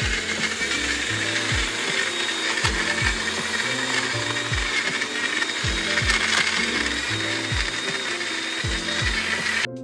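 Magic Bullet blender running steadily as it blends a protein shake, then cutting off suddenly near the end. Background music with a steady beat plays underneath.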